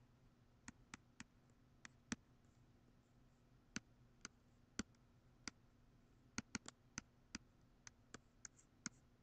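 Stylus pen tip tapping and clicking on a tablet screen while numbers are handwritten: sharp irregular clicks, roughly two a second, over a faint low hum.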